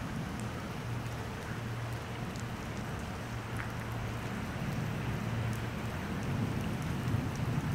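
Steady rain falling after a thunderstorm, with scattered drop ticks. A low rumble of thunder swells over the last couple of seconds.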